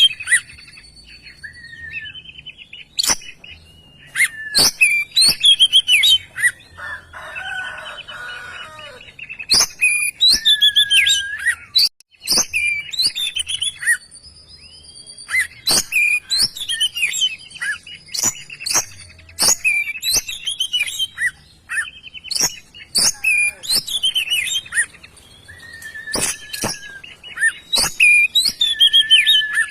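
Oriental magpie-robin (kacer) singing loudly and without pause: a fast, varied run of whistled phrases mixed with sharp clicking notes, with a short harsh, scratchy phrase about seven seconds in.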